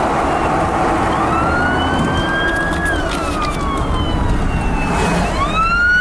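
Siren wailing: a pitched tone that climbs quickly, holds, slides slowly down and climbs again near the end, heard from inside a car over a steady rush of wind and rain noise.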